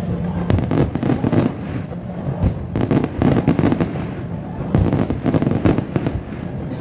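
Fireworks display: aerial shells and low-level barge effects going off in rapid clusters of bangs and crackles, with the densest runs about half a second in, around three seconds in, and again around five seconds in.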